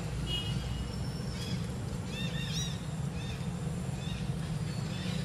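Outdoor ambience: a steady low rumble with many short, high chirps scattered through it, thickest about halfway through.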